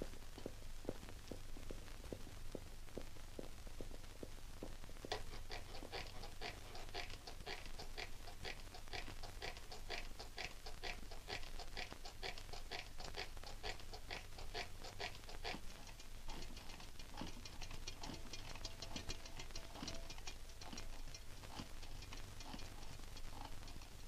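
A long run of quick, sharp taps or clicks. They are faint at first, become clearer at about three a second from roughly five seconds in, and turn denser and quieter later on, over a steady low hum.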